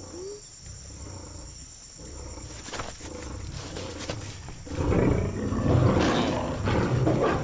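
A pack of leopards growling. It is faint at first, swells about two seconds in, and gets much louder from about five seconds in as they close in.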